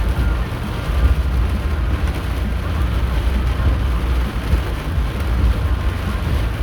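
Car cabin noise while driving: a steady low road and engine rumble with a wash of tyre and wind noise.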